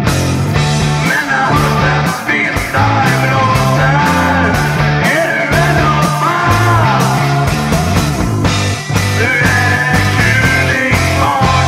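Rock song playing: a driving bass line and steady drum beat with a singing voice over them.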